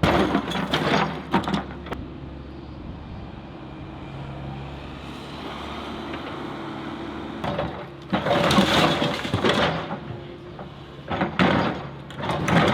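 Heavy demolition machinery tearing down a building: an engine running steadily, with loud crashing and cracking of breaking material at the start, again about seven seconds in, and near the end.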